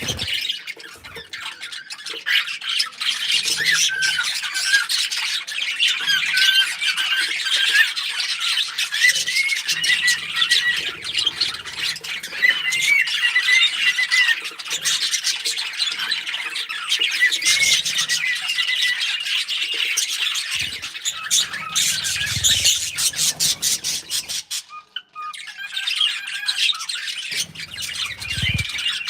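Small pet parrots chirping, squawking and warbling without a break, with wavering whistled notes running through the chatter. The calls drop away briefly near the end, then start again.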